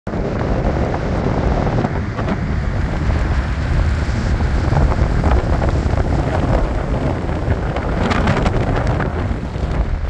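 Wind buffeting the microphone: a loud, gusty low rumble with a constantly fluttering level.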